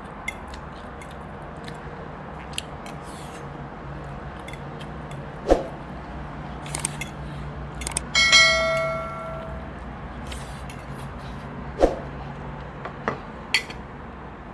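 A bright bell ding from a subscribe-button notification sound effect about halfway through, struck once and ringing away over about a second and a half. Around it, a few sharp clinks of a utensil against a plate over a low steady room hum.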